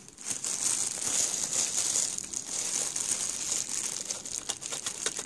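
Plastic bags crinkling steadily as gloved hands handle a manual coffee grinder, with small clicks from the handling.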